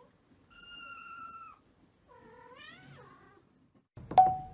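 Kitten mewing faintly twice: one call held at a steady pitch for about a second, then a shorter one that rises and falls. Near the end a sudden loud chime-like ding cuts in.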